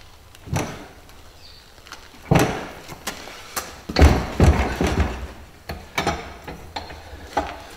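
Metal clanks and knocks of a stainless steel tube and a bench vise being worked by hand as the leg is bent back straight: a sharp knock about two seconds in, a run of clanks about four seconds in, then scattered knocks.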